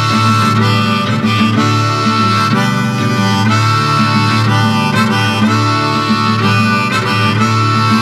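Instrumental break in a folk song: a harmonica melody of held notes over guitar accompaniment.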